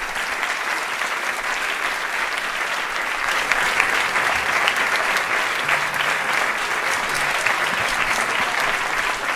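Audience applauding: a dense, steady wash of many people clapping that holds at full strength throughout.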